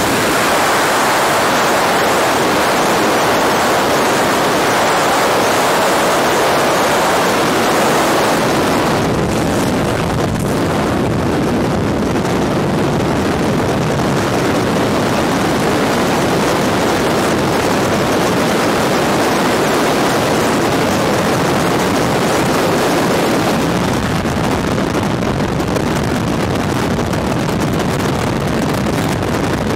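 Loud, steady wind noise: rushing air at the open door of a propeller-driven jump plane, which about nine seconds in gives way to freefall wind buffeting the camera microphone.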